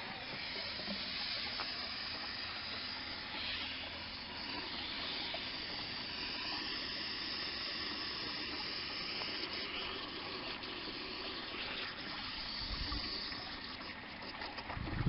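Water from a garden hose running steadily into a Jeep Cherokee XJ's cooling system at the disconnected upper radiator hose, flushing old coolant through and out the bottom: a continuous hiss of flowing water.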